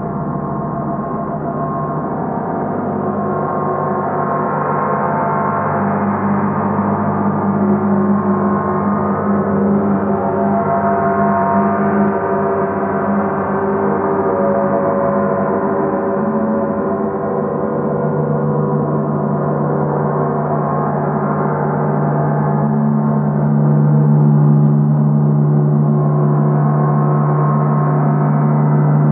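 Three hanging gongs, a large central gong and two smaller ones, played continuously with mallets, making a dense wash of overlapping ringing tones. The sound swells slowly louder, with a deep hum growing stronger in the second half.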